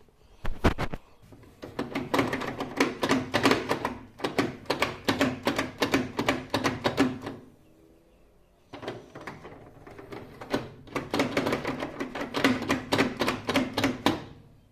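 Kogan microwave door and latch clicking and rattling rapidly as the door is worked repeatedly, in two bouts with a pause near the middle: the latch is stuck and the door will not open.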